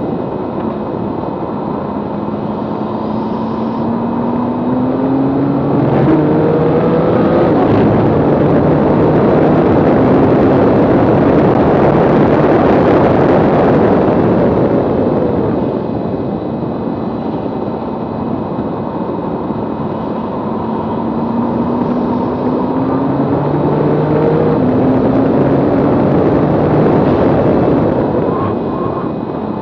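Tuned Nissan GT-R's twin-turbo V6 under hard acceleration on track, its pitch climbing again and again as it pulls through the gears. Heavy wind and tyre rush on the microphone swells loudest about ten to fourteen seconds in. The level drops briefly around fifteen seconds in and again near the end.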